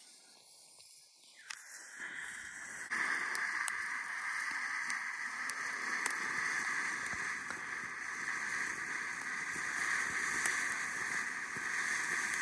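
World Class 'Do Not Disturb' firework fountain catching about three seconds in, then spraying sparks with a steady hiss and scattered crackles.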